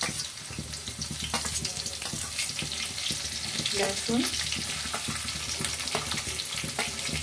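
Chopped green chillies sizzling in hot oil in a kadhai, a steady frying hiss with scattered little pops and crackles.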